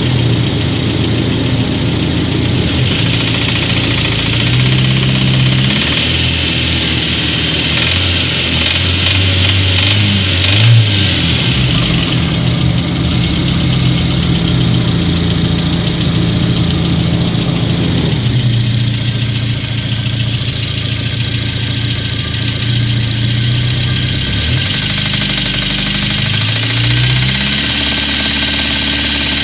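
Freshly overhauled engine running, with its speed rising and falling several times, and a knock that the owner suspects may be the connecting rods, after new piston rings and repair-size rod bearings.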